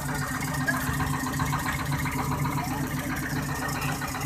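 Fishing boat's engine running steadily at an even speed, a constant low hum.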